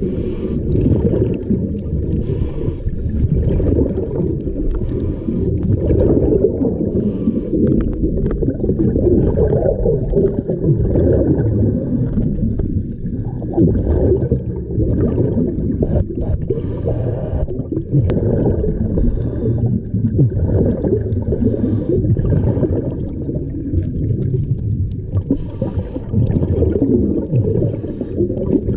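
Scuba diver breathing through a regulator underwater: a continuous low rumble of exhaled bubbles and water noise, with recurring hissing breaths through the regulator.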